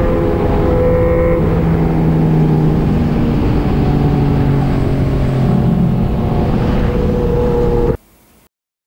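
Motorcycle engines running at a steady speed over rushing wind and road noise, their notes holding level and shifting now and then. The sound cuts off abruptly about eight seconds in.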